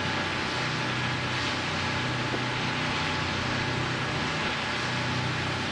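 High-speed catamaran ferry running at about 28 knots: a steady low engine drone under an even rush of bow spray and wash.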